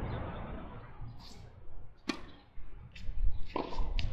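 Tennis ball in play on a hard court: a sharp pop of racket on ball about two seconds in, then several quick pops of hits and bounces near the end.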